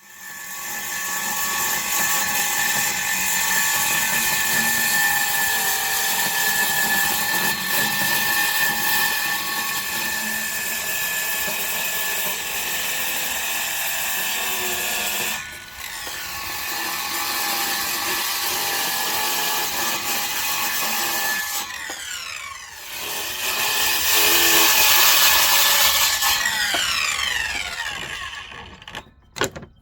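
Power saw running and cutting wood with a steady whine. Twice in the second half its pitch falls away as it winds down, and it stops near the end.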